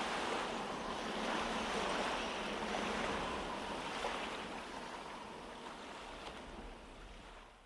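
Ocean surf, a steady rushing wash of waves, fading out slowly over several seconds.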